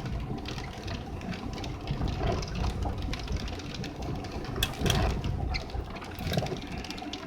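Car engine and road noise heard from inside a moving vehicle, a steady low rumble with scattered clicks and knocks.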